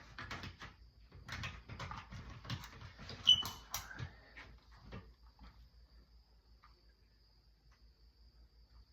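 Plastic clicks and knocks as a battery is fitted back into a smoke detector, with one short, loud high chirp a little over three seconds in; it goes much quieter after about five seconds.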